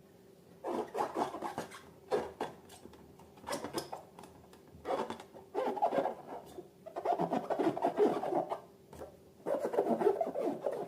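Slime being squeezed and kneaded by hand: sticky, crackling squishes with tiny popping clicks, coming in about seven irregular bursts with short pauses between them.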